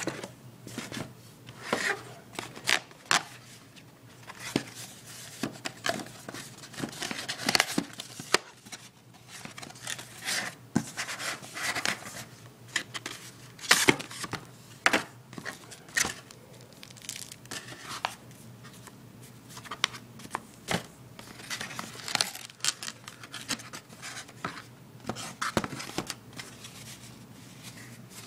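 Tablet packaging being opened and handled by hand: irregular tearing and crinkling of wrapping and cardboard, with scattered sharp clicks and taps.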